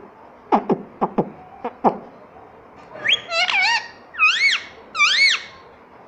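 Indian ringneck parakeet making six quick, sharp clicks, then three loud whistled calls, each rising and falling in pitch.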